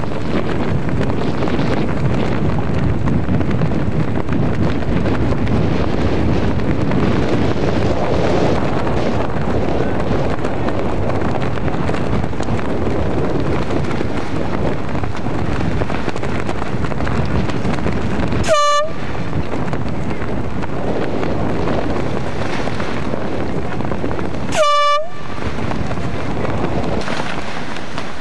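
Wind rushing over the microphone throughout, with two short blasts of an air horn about six seconds apart in the latter half.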